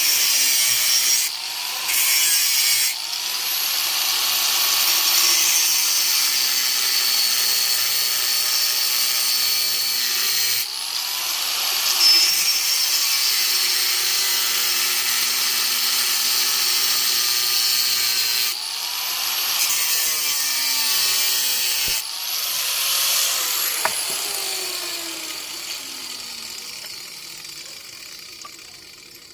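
Handheld electric power tool running hard on metal in several long passes, its pitch rising and dipping as the load changes. Near the end it is switched off and winds down, the whine falling away over several seconds.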